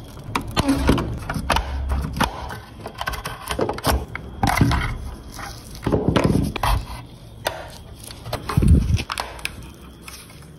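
A metal pry tool scraping and levering the rusted, crusted body panels of a 1/18 scale diecast Nissan 350Z model loose, giving irregular crunches, scrapes and sharp clicks. The loudest crunch comes about three quarters of the way through.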